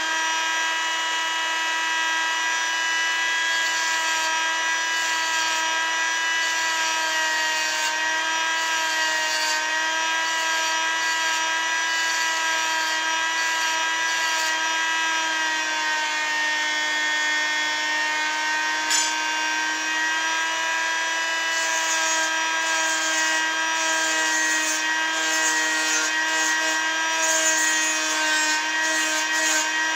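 Engraving machine running with a steady motor whine while its diamond tool scratches into the workpiece; the scratching grows stronger in the second half, with one sharp click a little past halfway.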